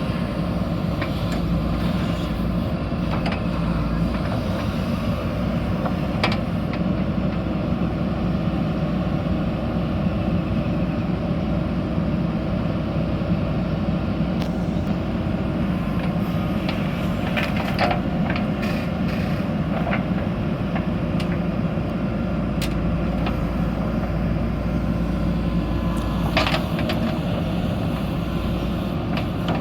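JCB backhoe loader's diesel engine running steadily as it works, with a few short sharp knocks spread through.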